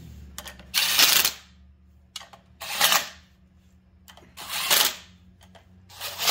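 Cordless impact driver running in four short bursts, about two seconds apart, lightly snugging the pressure plate bolts of a clutch on an LS1 V8. The bolts are only being run down to hold the clutch disc centred before they are torqued to spec.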